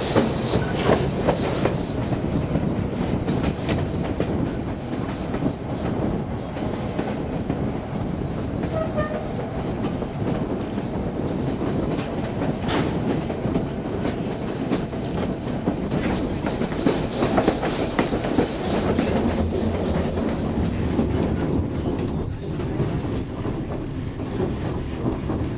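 White Pass & Yukon Route passenger train running, heard from on board: a steady rumble with irregular clicks and clatter of steel wheels over the rails.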